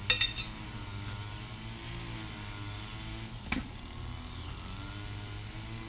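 Low steady background hum with one sharp knock about three and a half seconds in, as a wooden pallet is being pried and knocked apart by hand.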